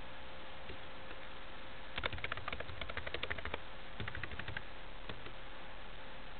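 Computer keyboard typing: a quick run of keystrokes about two seconds in, a shorter run around four seconds, and a single click near five seconds. Under it runs a steady faint hiss with a thin hum.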